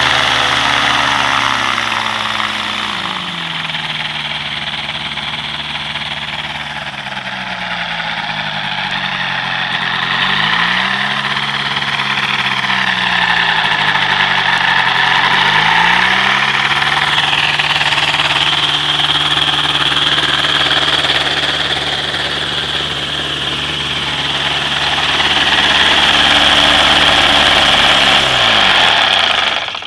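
Rotax 582 two-stroke twin aircraft engine turning a propeller at high power on a test stand. Its speed dips and recovers a few times, then it winds down and stops just before the end.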